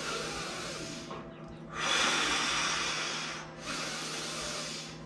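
A person taking slow, deep breaths, three long hissing breaths of one to two seconds each, the loudest about two seconds in. This is controlled belly breathing to ride out the cold shock of an ice-water immersion.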